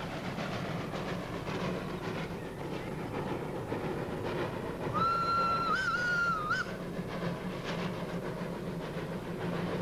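Achenseebahn steam rack locomotive running uphill under load, with steady exhaust beats and rail noise. About five seconds in it sounds one slightly wavering steam whistle blast lasting about a second and a half, a warning at the road level crossing.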